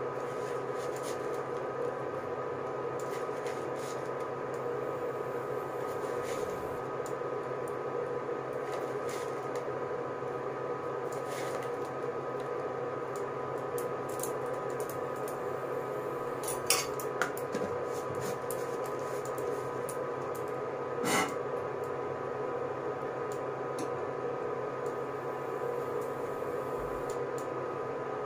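A metal spoon clinking now and then against a jar and a pan as fried onions are scattered over layered biryani rice, with two sharper clinks in the second half. A steady hum with a faint whine runs underneath.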